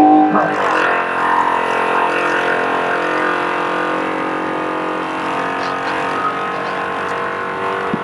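Trophy truck's engine running hard off the start line, heard from inside the cab: a steady, unchanging drone over rushing noise.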